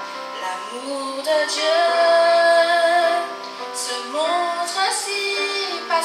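A woman singing a slow worship song through a microphone and PA, accompanied by electric keyboard and electric guitar. She holds one long note through the middle, then slides up into the next phrase.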